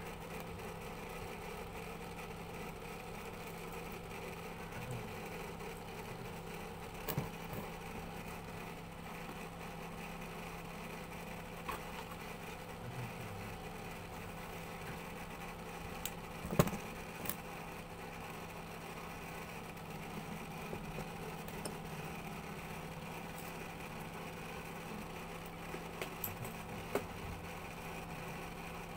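A steady machine-like hum with a few short clicks and knocks, the sharpest about halfway through.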